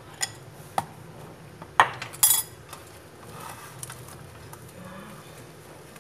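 A metal spoon clinking and scraping against a ceramic bowl as frying flour is tipped out onto a metal tray: a few sharp clinks, the loudest about two seconds in. Softer rustling of plastic wrap being handled follows.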